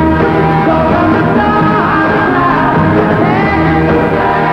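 Rock music playing, with singing.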